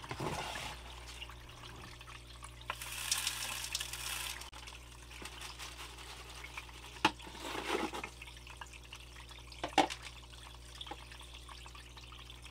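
Water running through a small sluice as paydirt is fed in, with splashing swells and two sharp clicks about seven and ten seconds in, over a steady low hum.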